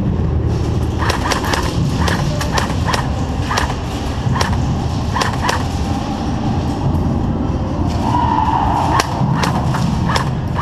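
Airsoft guns firing in an indoor close-quarters arena: scattered sharp cracks, singly and in short strings, over a steady low rumble.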